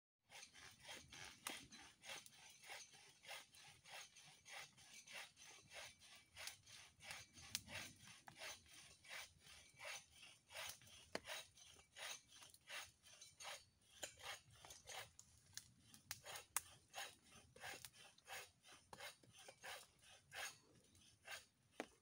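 Faint, steady rhythm of a small hand saw cutting wood, about two or three strokes a second.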